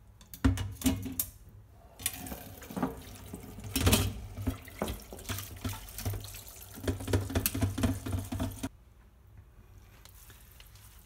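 Water and glass noodles poured from a glass bowl into a metal colander in a stainless-steel sink, splashing and draining, with repeated knocks of the bowl and colander. It stops abruptly about two seconds before the end.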